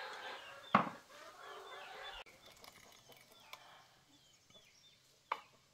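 Chickens clucking in the background, with a sharp knock about a second in and a smaller click near the end.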